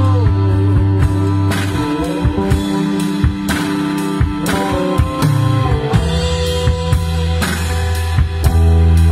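Acoustic rock trio playing: drum kit, electric bass and acoustic guitar, with a steady beat and a strong bass line.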